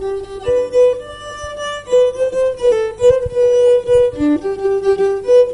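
Rabel, a small bowed Chilean folk fiddle, playing a simple melody of held notes that step up and down.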